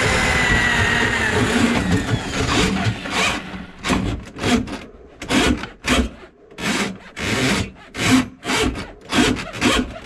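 Drum-type drain snake machine's motor and spinning drum running, the whine dropping and dying away about two seconds in. Then a regular scraping and rubbing, about two strokes a second, as the snake's steel cable is worked by hand at the drum.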